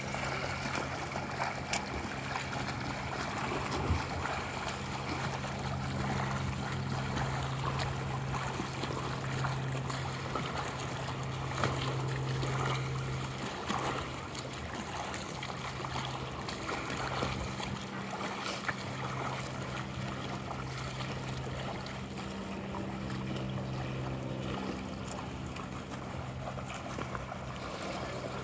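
Lap-pool water noise: splashing and churning from a swimmer's freestyle and backstroke strokes, over a steady low hum that drops out for a few seconds about halfway through.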